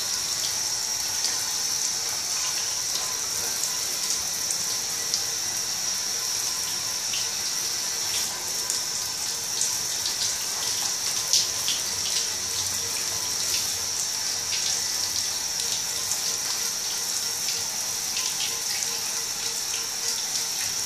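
Shower spray pouring onto patent-leather ballet flats and the floor around them: a steady hiss of running water with occasional brief splashes.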